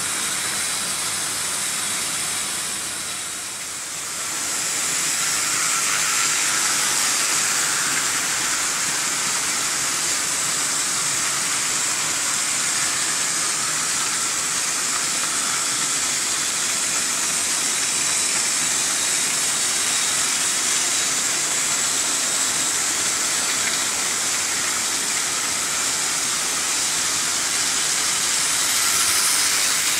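Several Märklin H0 model trains running at once on pressed-steel M-track: a steady rolling rattle of wheels on the track mixed with the whir of the locomotive motors. It dips briefly about three seconds in.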